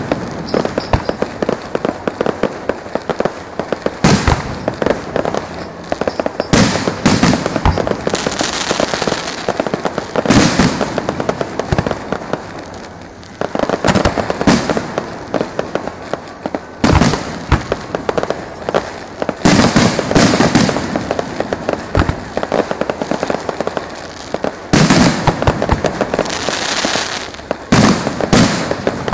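Electrically fired festival fireworks: a dense, continuous firecracker crackle broken by loud sharp bangs every second or two.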